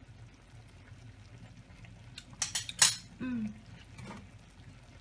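A metal spoon clinking against cookware a few times in quick succession about two and a half seconds in, as a taste of the sauce is taken, followed by a brief vocal sound.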